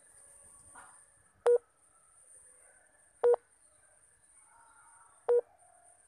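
Three short, loud, steady-pitched electronic beeps, about two seconds apart, over a faint steady high hiss.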